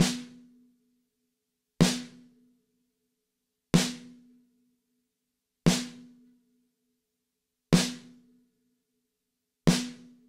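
Restored 1970 Slingerland Model 140 snare drum, with a Remo Coated Ambassador batter head, struck with a drumstick in single hits about every two seconds, six in all. Each hit is a bright crack with snare-wire buzz that dies away quickly, leaving a short ring from the batter head, tuned to 253 Hz.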